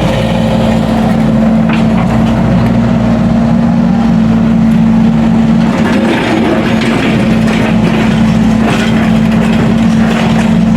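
Excavator's diesel engine running steadily under load, with a few metallic clanks or scrapes from the digging.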